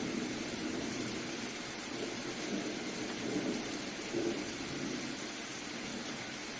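Steady soft rain: an even hiss of falling rain with an uneven low rumble swelling and fading underneath.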